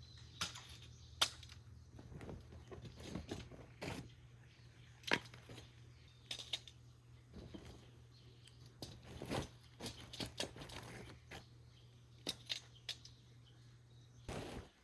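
Irregular clicks, taps and rustling of objects being handled, over a low steady hum; everything cuts off suddenly near the end.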